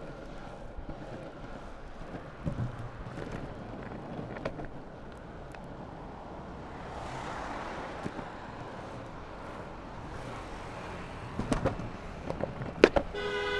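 Longboard wheels rolling over pavement asphalt, a steady rumble with scattered sharp clicks over cracks and joints, with road traffic alongside; a passing vehicle swells up about seven seconds in. A steady horn-like tone starts just before the end.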